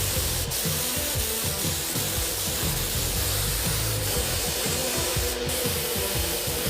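Sanding: steady abrasive rubbing of sandpaper over a surface.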